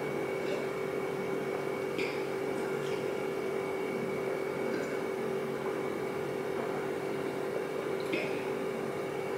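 Steady hum made of a few fixed tones, with a couple of faint soft sounds as water is drunk from a plastic cup.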